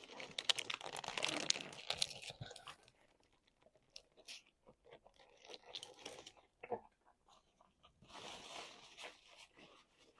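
Close-miked eating: crunching and crinkling crackles, in a dense bout at the start, scattered crackles in the middle and another bout about eight seconds in.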